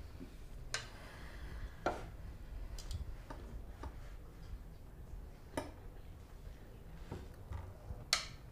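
Scattered light clicks and taps of small hard objects being handled, irregularly spaced, with the sharpest one near the end, over a low room hum.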